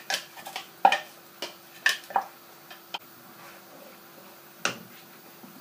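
Wooden spoon and utensils knocking and scraping against a non-stick frying pan while wet onion-tomato paste is stirred into the oil: several sharp taps in the first three seconds, then quieter stirring with one more knock near the end.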